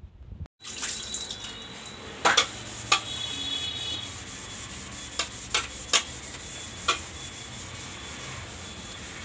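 Removable refrigerator shelves and drawers being scrubbed by hand with dish soap: a steady rubbing, with about six sharp knocks as the pieces are handled.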